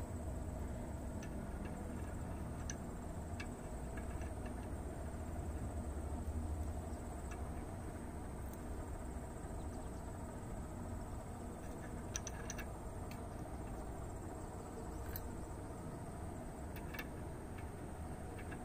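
A steady high-pitched insect drone over a low rumble, with scattered faint clicks of small metal parts being handled at a trailer wheel hub.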